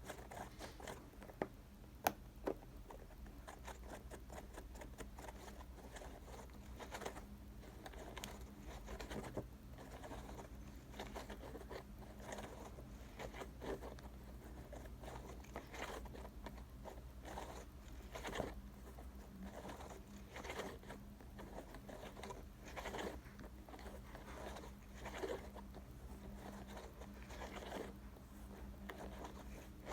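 Fingers pressing and fiddling with a cake-shaped silicone pop-it fidget toy, making soft, irregular pops and clicks. There are a few sharper clicks about two seconds in.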